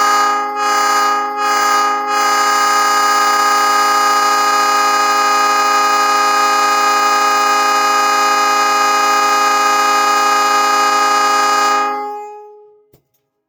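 Nathan Airchime P3 three-chime train horn sounding its chord: a few quick breaks in the first two seconds, then one long, steady blast of about ten seconds that dies away near the end.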